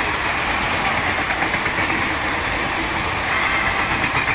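Indian Railways passenger coaches rolling past at speed close by: a steady, loud rumble and clatter of wheels on the track.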